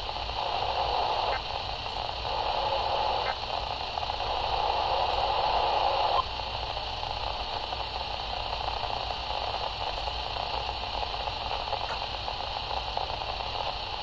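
Static hiss from a Midland weather radio's speaker on a weak NOAA Weather Radio signal. For the first six seconds a fluctuating murmur sits under the hiss, then it cuts off suddenly, leaving even hiss with no clear voice or alert tone.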